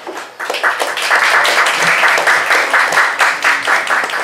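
Audience applauding: the clapping starts about half a second in, holds strong, and begins to die away near the end.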